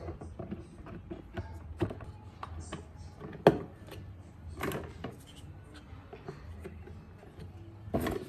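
Scattered clicks and knocks of plastic drinker caps being twisted and handled in a plastic bucket, one sharp knock loudest about three and a half seconds in.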